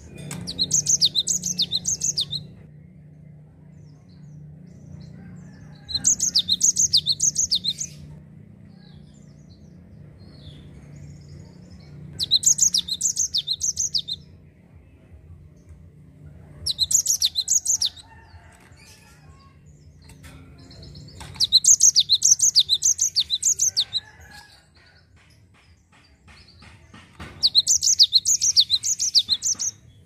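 Cinereous tit (gelatik batu) singing in six bursts of rapid, high-pitched repeated notes, each about two seconds long and a few seconds apart.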